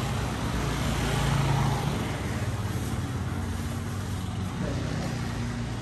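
A motor vehicle's engine running close by, a steady low hum that swells a little about a second and a half in.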